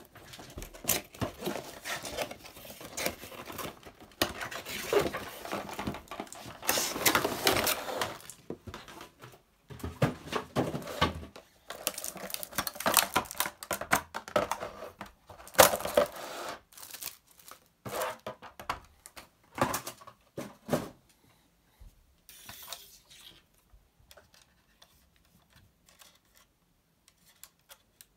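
Cardboard display box and clear plastic packaging tray being opened and handled: rustling, crinkling and scraping mixed with many small clicks and taps. About 21 seconds in the rustling stops, leaving only occasional light taps and clicks from handling the plastic diecast model car.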